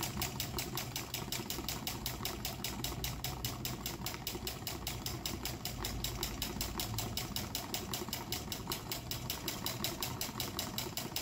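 Homemade solar-heated Stirling engine made from aerosol cans, running on its own with a fast, even ticking clatter, several strokes a second.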